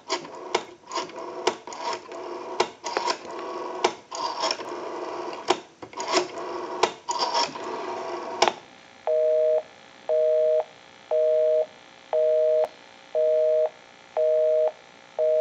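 Western Electric 554 rotary dial pulsing out a number, heard as a run of uneven clicks over the phone line. About eight and a half seconds in, a busy signal starts: a two-note tone beeping on and off about once a second.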